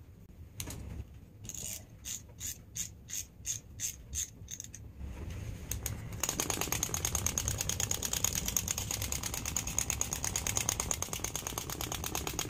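Clockwork mechanism of a small wind-up toy chick. The spring is wound with ratchet clicks a few times a second, then from about six seconds in the toy runs with a louder, fast, even clicking.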